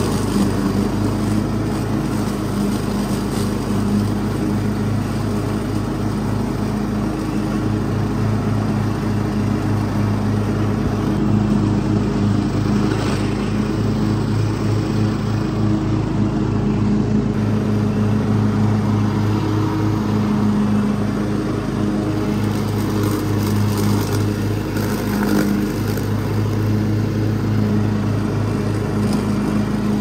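Cub Cadet riding lawn mower's engine running steadily at a constant speed while mowing grass.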